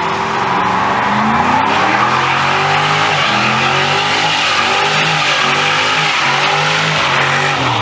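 Ford Mustang convertible doing a burnout donut: its rear tyres squeal against the road while the engine is held at high revs, its pitch wavering up and down.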